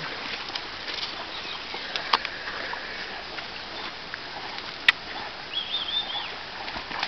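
Water splashing and churning as Newfoundland dogs swim, with two sharp clicks, about 2 and 5 seconds in, and a short high warbling call about five and a half seconds in.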